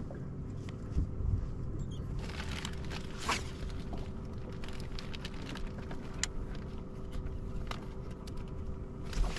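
Steady low rumble with a faint electric hum from a bass boat's bow-mounted trolling motor, with a few light clicks and taps of handling on the deck.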